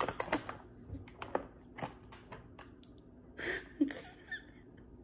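A woman's stifled laughter behind a hand over her mouth: a few short breathy gasps, the loudest about three and a half seconds in, among faint clicks.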